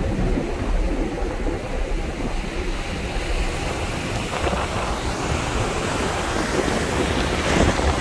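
Wind buffeting the microphone over the rushing water of a ship's churning wake. The hiss of the water grows brighter from about halfway through.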